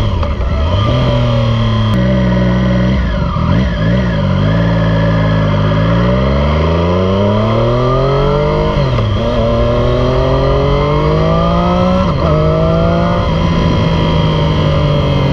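2018 Triumph Street Triple 765 RS inline three-cylinder engine, breathing through a Yoshimura Alpha T exhaust and heard from the rider's seat. The engine note falls as the bike slows and drops to first gear, then rises hard under acceleration. It dips sharply at two quick upshifts about three seconds apart, then settles into a steady cruise in third.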